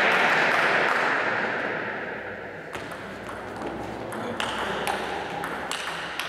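Applause dying away over the first two seconds, then a table tennis rally: the ball clicking sharply off the bats and the table, about two clicks a second.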